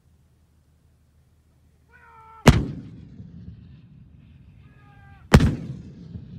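Towed 105 mm light gun firing twice, about three seconds apart, heard from a distance: each shot a sharp report followed by a trailing echo. A brief shouted call comes just before each shot.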